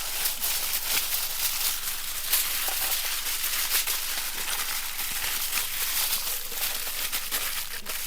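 Aluminium foil crinkling and crackling continuously as it is folded and pressed around a whole marinated chicken.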